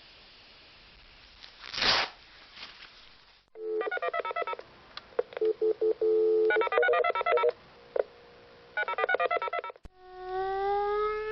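Telephone keypad tones: several quick runs of dialing beeps with a steady low tone between them, after a stretch of hiss with a brief loud rush about two seconds in. Near the end a siren starts up, its wail rising in pitch.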